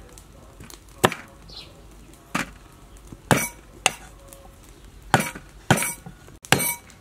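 Cleaver chopping on a wooden chopping board: about seven sharp chops at uneven intervals.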